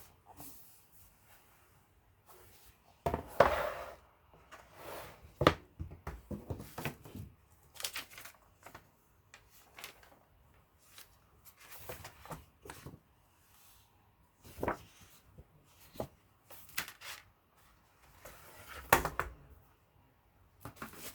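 Handling noises of a Surface Pro Signature keyboard cover and pen being picked up, turned over and set down: irregular clicks, knocks and rustles, the loudest knocks about 3 s in and near the end.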